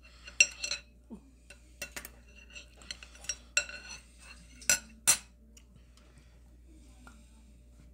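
Metal chopsticks clinking and tapping against a ramen bowl while stirring the noodles, a scatter of sharp clinks with a short metallic ring; the two loudest come close together about five seconds in, then the clinking stops.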